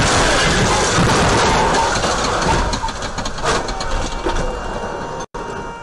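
Motorcycle riding at speed, heard through a helmet-mounted camera: engine rumble under a loud, even rush of wind noise, which cuts out for an instant near the end.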